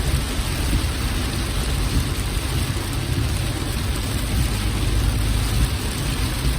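A car driving in heavy rain: a steady hiss of rain and wet road over a constant low rumble from the car.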